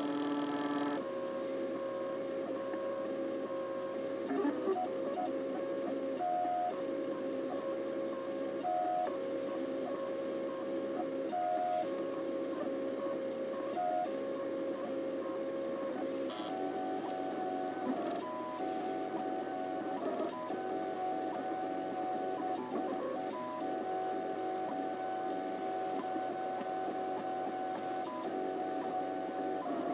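MakerBot dual-extruder 3D printer printing: its stepper motors whine in steady tones that jump to new pitches every second or two as the print head changes moves.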